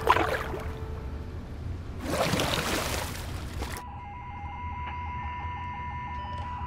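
A low steady rumble with two brief rushing surges of noise. About four seconds in, a steady high electronic tone with a fast regular pulse starts up: a high-frequency tracking signal, "booming in".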